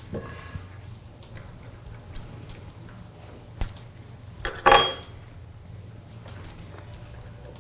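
Small metal parts and tools clicking and clinking as a bicycle hub is reassembled, with a sharp click midway and a louder ringing metal clink just after.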